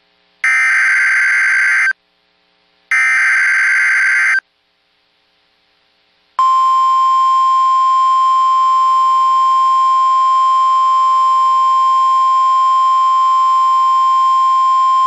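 Emergency Alert System broadcast signal. First come two bursts of the SAME header, screeching digital data tones about a second and a half each with a second's gap between them. After a pause of about two seconds, a single steady 1050 Hz weather-alert attention tone sounds for about nine seconds, then cuts off.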